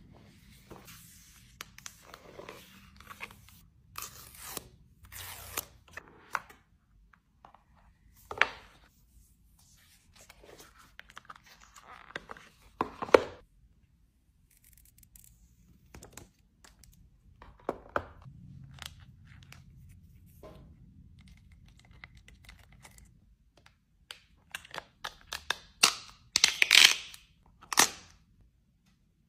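Phone unboxing by hand: plastic packaging and protective film being torn and peeled from a new iPhone box and phone, with scraping and handling. It comes as scattered short crackles and rustles, with the densest, loudest run of crackling near the end.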